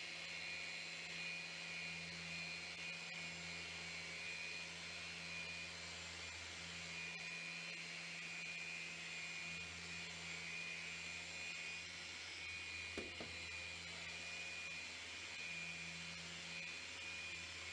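Random orbital sander with a 600-grit disc running steadily on an acrylic glass panel, the first grit stage in sanding out a deep scratch. A single brief tap comes about two-thirds of the way through.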